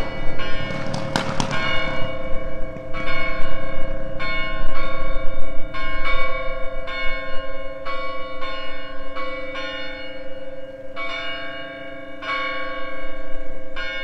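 Church bells pealing: several bells struck again and again in an uneven rhythm, about one to two strikes a second, each strike ringing on and overlapping the next.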